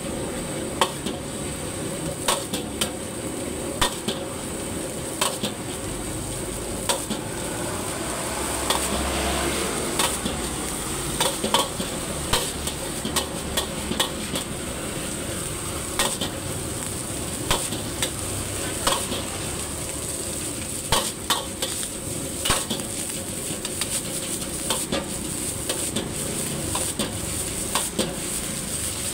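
Fried rice sizzling in a wok as it is stir-fried, the metal spatula scraping and clanking against the wok in irregular strokes about every second or so.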